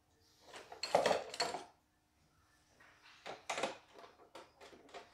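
Small metal hand tools clattering as they are rummaged and picked up, then a run of light clicks and taps as a screwdriver works on the plastic casing of an embroidery machine.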